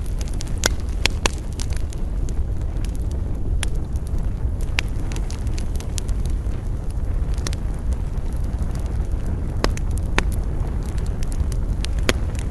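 Wood campfire crackling: frequent sharp pops and snaps at irregular intervals over a steady low rumble.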